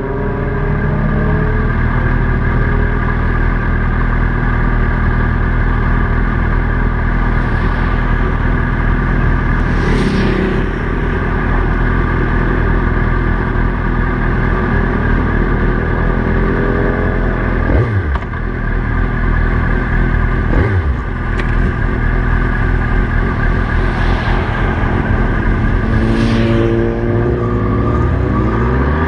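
Honda CB600FS Hornet's inline-four engine idling steadily, with a few rising revs around the middle. Near the end it revs up and pulls away, climbing in pitch as it accelerates.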